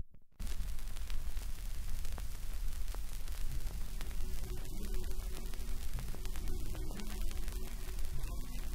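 Surface noise of a 1936 Polydor 78 rpm shellac record: steady hiss with scattered crackle and a low rumble, starting suddenly just after the start. Faint music comes in under the noise about four seconds in.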